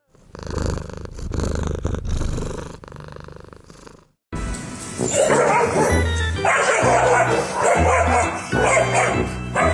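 Two dogs play-fighting, growling and barking at each other in rough play rather than real aggression. Background music with a steady beat comes in about four seconds in.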